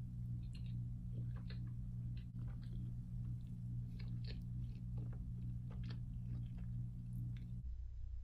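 Close-miked chewing of a cheeseburger: irregular wet mouth clicks and squishes over a steady low hum.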